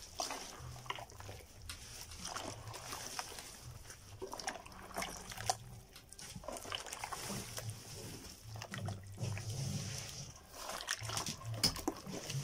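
Hands squishing and sloshing a wet mix of butter, sugar and hot water in a large plastic tub, with irregular wet squelches and splashes as the butter and sugar are broken up into the liquid for bread dough.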